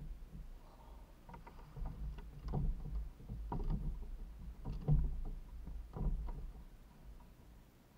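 Irregular knocks and bumps on a plastic kayak as its paddle and gear are handled, carried through the hull to the kayak-mounted camera, over a low rumble. The loudest knock comes about halfway through.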